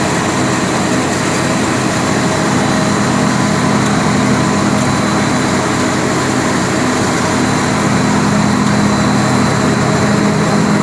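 Wire-making machine running with a steady, unbroken mechanical hum and clatter.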